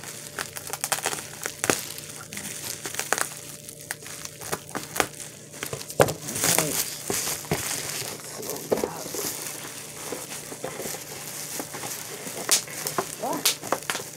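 Bubble wrap and packing material being handled and pulled out of a cardboard box, crinkling and rustling with many small sharp crackles.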